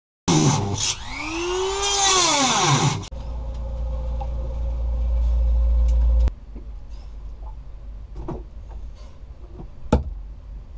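Small corded electric drilling tool boring into a boat's wall panel. Its motor speeds up and slows down in sweeps for about three seconds, then runs steady with a deep hum and stops abruptly about six seconds in. After that come light clicks and rustles of wires being handled, with one sharp click near the end.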